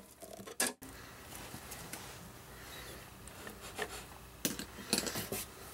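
Faint handling noises: fingers rubbing and clicking against the lawn mower's metal belt-tensioner bracket and spring, with a few light knocks and scrapes in the last second and a half.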